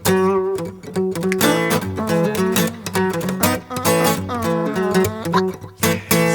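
Music: a guitar-led song with pitched notes and strummed strokes, no singing.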